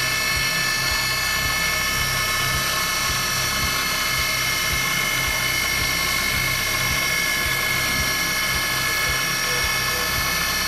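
ProtoTrak DPM3 CNC bed mill's spindle running and its engraving cutter cutting into a metal bar: a steady whine of several high tones over a low, pulsing hum.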